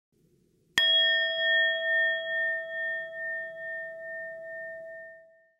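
A single bell struck about a second in. It rings on with a pulsing, slowly fading tone that dies away near the end.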